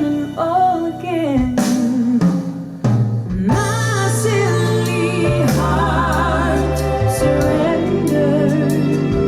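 A song played back through Bowers & Wilkins 805 D4 bookshelf loudspeakers: a sung vocal line with vibrato over bass and drums, running without a break.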